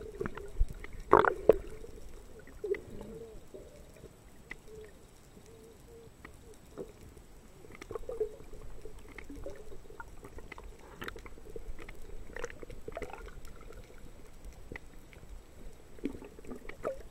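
Muffled underwater sound picked up by a submerged camera: a low water murmur with scattered clicks and knocks, one louder knock about a second in.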